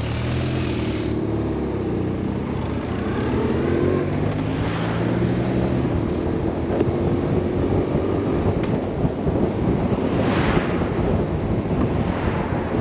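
BMW R 1150 RS boxer-twin engine running steadily under way, with wind rushing over the microphone. The wind noise grows louder after about six seconds and swells a few times.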